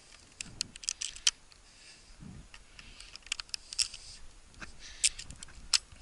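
Slow footsteps crunching through snow and dry weed stalks, heard as three short clusters of sharp crackles about two seconds apart.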